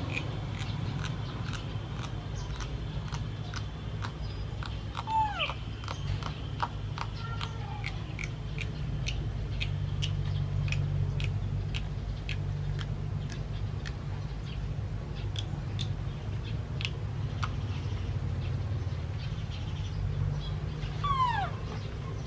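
A baby macaque gives a few short squeaky calls that fall in pitch, the clearest about five seconds in and again near the end, over a steady low hum and scattered light clicks.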